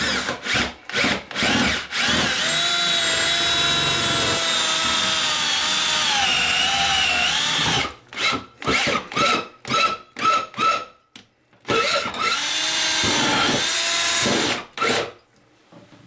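Milwaukee cordless drill driving a screw-tipped auger bit through the wall. It runs in short trigger bursts, then in long steady runs of several seconds, and its whine sags in pitch as the bit bites.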